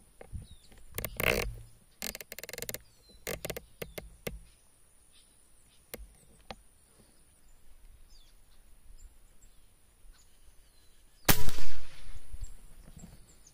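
A single air rifle shot about eleven seconds in: a sharp, loud crack that dies away within about a second. Earlier, a few clicks and a short rattle as the rifle and scope are handled.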